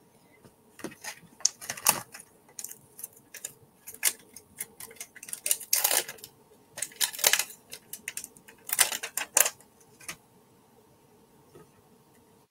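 Irregular light plastic clicks and taps from a clear stamp being handled and pressed onto card stock on a glass craft mat while a sentiment is stamped. The taps thin out near the end.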